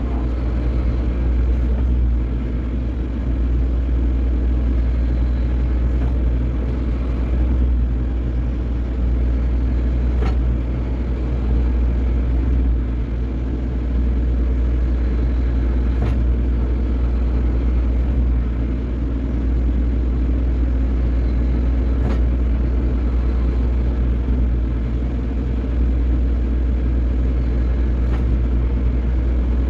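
Excavator diesel engine running steadily under working load, a constant low hum, as the bucket levels loose soil. A faint click is heard about every six seconds.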